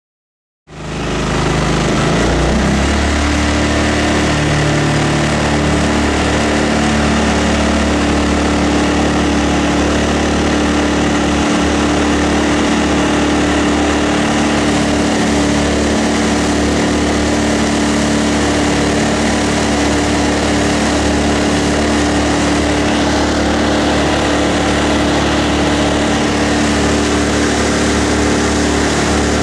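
The Subaru KX21 single-cylinder engine of a Mokai jet boat running steadily at full throttle, about 4380 RPM, while the boat is under way. It starts abruptly just under a second in and then holds an even pitch and level: the engine is keeping its RPM, with cooled intake air from an intercooler.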